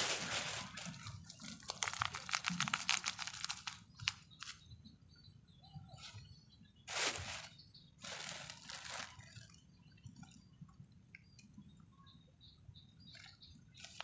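Thin plastic bag crinkling and nylon net rustling as the catch is shaken out of a collapsible umbrella fish trap into the bag. There is a dense stretch of crinkling over the first few seconds, then a few shorter rustles.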